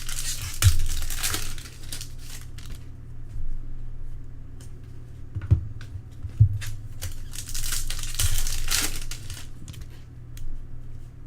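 Trading-card pack wrappers crinkling and cards being handled, in two stretches of crinkling, one at the start and one around eight seconds in, with a few light clicks and taps between them.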